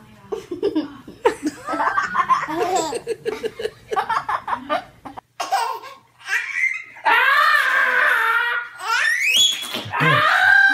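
A baby and a man laughing together: short choppy giggles at first, then, after a cut, long drawn-out squealing laughs that waver up and down in pitch.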